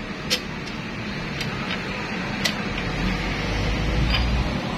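A few sharp metallic clicks and clinks of a hand tool on the bolts and fittings of a Yanmar diesel engine being taken apart, over a steady background hum. A low rumble swells in the second half.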